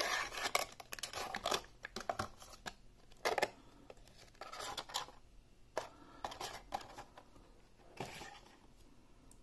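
Handling packaging: a small cardboard puzzle box opened and a Rubik's-type cube pulled from its crinkling clear plastic wrapper, in irregular rustles, crinkles and small clicks.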